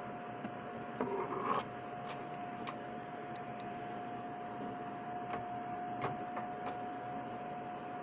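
Handling noise from a computer power supply being fitted into a Dell GX280 desktop case: a short scraping rustle about a second in, then a few sharp metal clicks. A steady high whine runs underneath.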